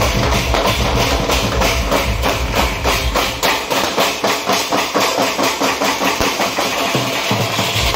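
Band of large metal-shelled drums beaten with sticks in a fast, even rhythm, about six strokes a second. The deep bass drops away about halfway through while the beating carries on.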